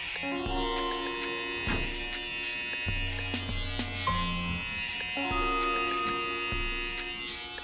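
Electric hair clippers buzzing as they cut hair over a comb, over background music with held notes that change every second or so.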